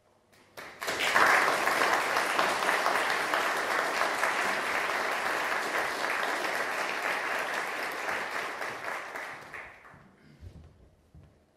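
Audience applauding. The clapping starts within the first second, holds steady, then dies away near the end.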